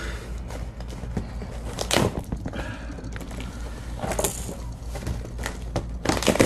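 Rustling and knocking of packing material and parts being handled while a well-packed shipping box is unpacked. The sharpest knocks come about two seconds in and near the end, over a steady low hum.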